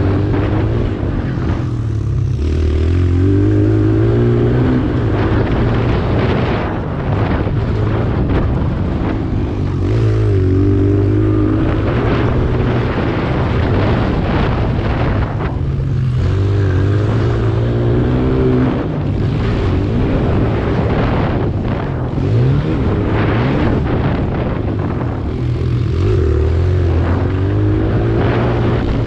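Kawasaki KLX140 pit bike's single-cylinder four-stroke engine being ridden hard around a dirt track. Its pitch climbs and drops again every few seconds as the throttle opens and shuts through the corners and jumps, with wind rushing past throughout.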